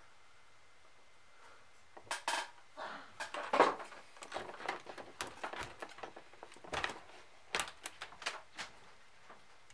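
Hard plastic and metal pieces of a multi-CD player clattering and clicking as it is handled and taken apart by hand. An irregular run of sharp knocks and rattles starts about two seconds in and dies away near the end.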